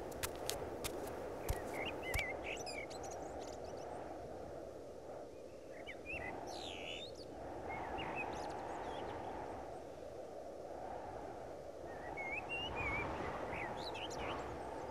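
Outdoor nature ambience: a steady low rushing background with scattered bird chirps and calls, one sweeping downward about seven seconds in. A few sharp clicks in the first two seconds.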